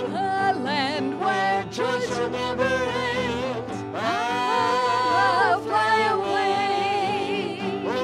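Live gospel song: a man and a woman singing over a strummed acoustic guitar, their voices wavering with vibrato and holding a long note about halfway through.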